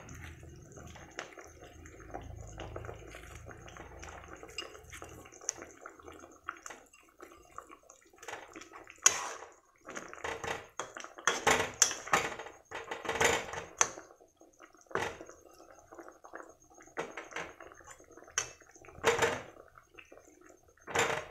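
A spatula knocking and scraping against a cooking pan as fried chhena (cottage cheese) patties are slid into a simmering curry and pushed into the gravy. The clatter is irregular, faint at first, busiest in the middle, with a few single knocks near the end.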